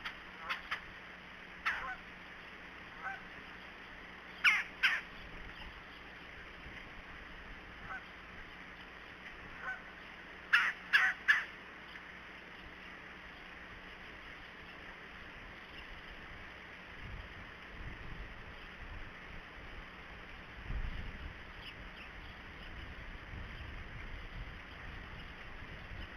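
Red-bellied woodpecker calling off camera: short calls, several in quick pairs and a triplet, in the first half.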